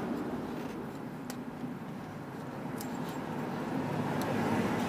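Steady outdoor background noise with a few faint clicks from hands working the alternator and its drive belt.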